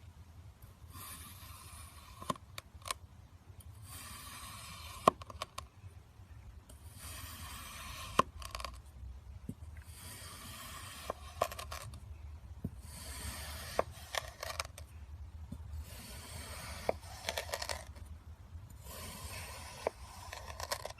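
Kinetic sand being crushed and crumbled, in about seven gritty crunching passes of a second or two each, with sharp clicks among them.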